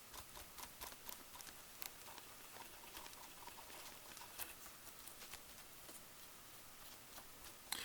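Near silence: room tone with faint, scattered light clicks and taps.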